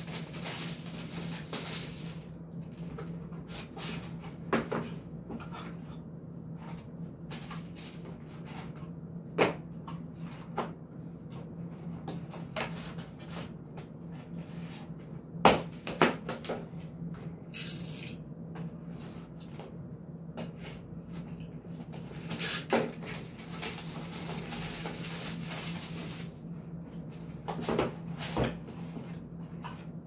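Handling noises from unpacking a small cardboard box of camera quick-release parts: scattered knocks and clicks as the box is opened and handled and small metal pieces are set down on a tabletop, with a brief scraping hiss a little past halfway. A steady low hum runs underneath.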